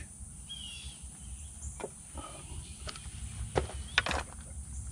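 A few faint, sharp metal clicks and taps as a pry bar and hand tools work at the differential gear of a dismantled Tesla Model 3 rear drive unit, over a quiet outdoor background with one short bird chirp about half a second in.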